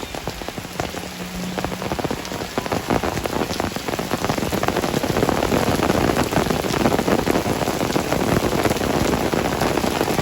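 Rain falling steadily, thick with separate drop hits, growing heavier a few seconds in. A faint steady hum is heard in the first two seconds.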